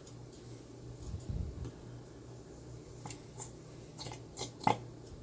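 Body lotion being squeezed out of its bottle into a measuring cup: slow, soft squishes and a few short clicks, the sharpest near the end, over a steady low hum.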